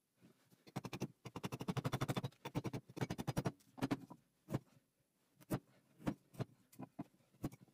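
Hand woodcarving tools cutting a wooden spoon blank: a fast run of quick scraping strokes for about two seconds, then single sharp cuts about every half second.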